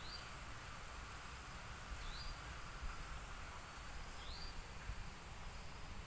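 Woodland ambience: a steady high insect hiss, with a short rising call repeated about every two seconds.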